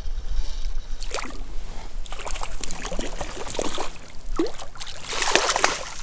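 Small brown trout splashing and thrashing at the surface of a creek as it is played in and netted: short splashes come every second or so, with a heavier spell of splashing about five seconds in, over a steady low rumble.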